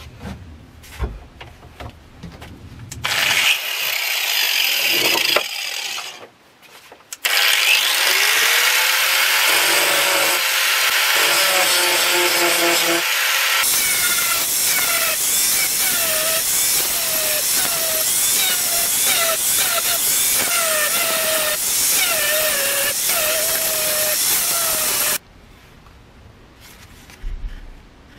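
Ryobi angle grinder grinding rust off a steel machete blade. It runs briefly a few seconds in, then grinds steadily for about eighteen seconds and cuts off sharply. In the later part its whine dips in pitch again and again as the disc is pressed into the steel.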